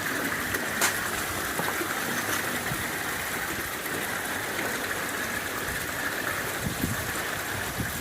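Steady rush of running water, with a few faint ticks.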